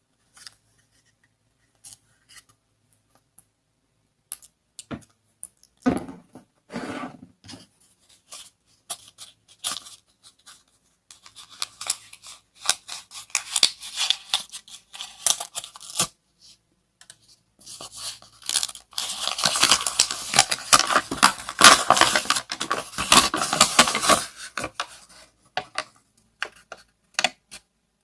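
Packaging being handled and torn open: scattered clicks and taps, then stretches of dense crackling and rustling, the loudest and longest from about 18 to 25 seconds in.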